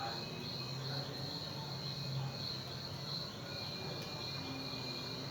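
Crickets chirping steadily in a high, pulsing trill, over a faint low hum.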